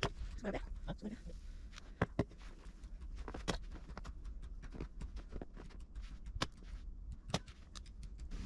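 Small kindling campfire crackling, with irregular sharp pops and snaps as it catches.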